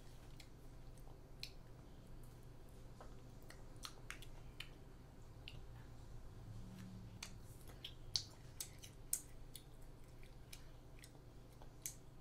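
A child biting and chewing a fish-shaped Korean ice cream sandwich: quiet, scattered mouth clicks and smacks, with a few sharper clicks in the second half.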